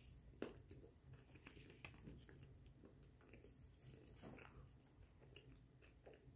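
Faint chewing of a mouthful of raw chocolate chip cookie dough: soft, irregular wet mouth clicks and smacks.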